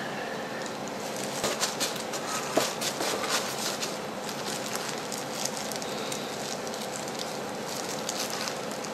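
Gloved hands digging through and crumbling loose, dark beetle-rearing soil in a plastic tray: the thin plastic gloves crinkle and the soil crackles and rustles. The crisp rustles come thickest in the first few seconds.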